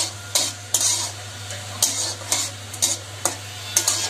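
Metal spatula scraping around a metal karahi, stirring dried red chillies frying in hot oil: a run of quick scrapes, about two a second, over a light sizzle.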